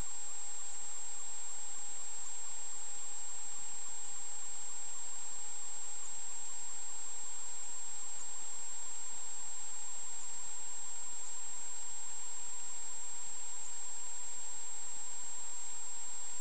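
Steady high-pitched electronic whine over a constant hiss, with a fainter, lower steady tone: electrical noise on the sewer inspection camera's recording.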